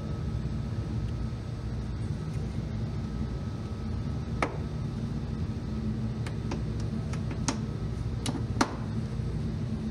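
Sharp plastic clicks as a car's fender liner is worked into place around the wheel arch: one about halfway through, then a quick run of them near the end. Under them runs a steady low hum.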